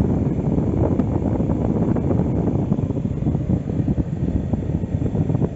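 Steady low rumbling noise inside a stationary car, the sound of a running vehicle and air movement on the microphone, with no distinct events.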